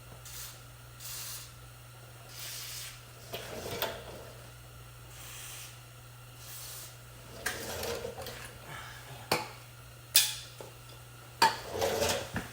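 A few short hisses of WD-40 from an aerosol can, then metal tools clinking and rattling, with several sharp metallic clanks in the second half.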